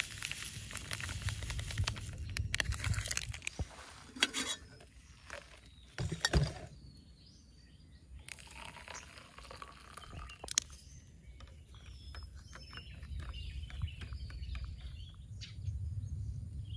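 Camp coffee being made: instant coffee powder poured from a sachet into a stainless steel cup, a couple of knocks, then water poured from a camping pot into the cups, with small clicks. A bird chirps now and then, and wind rumbles on the microphone at the start and near the end.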